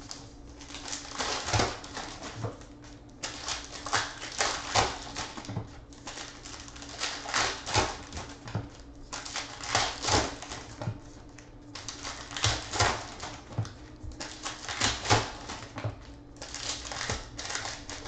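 Foil wrapper of a trading-card pack crinkling and crackling as it is handled and worked open, in repeated spells about a second long with short pauses between.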